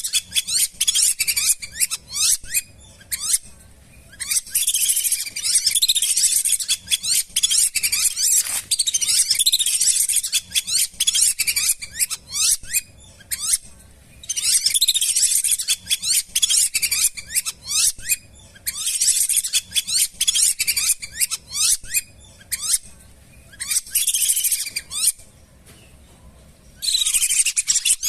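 Flock of lesser whistling ducks calling: dense runs of rapid, high, sliding whistles in bursts of a few seconds, broken by short pauses.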